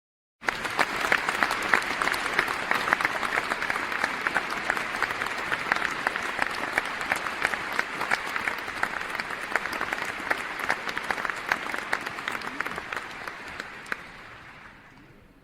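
Large audience applauding: dense, steady clapping that starts about half a second in and fades out slowly over the last few seconds.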